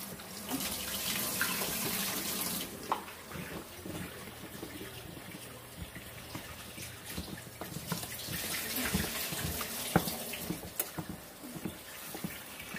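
Kitchen faucet running into a plastic container of baby carrots being rinsed in the sink, stopping about three seconds in. Afterwards a spoon stirs the carrots in a stainless steel frying pan, with scattered clicks of the spoon against the pan.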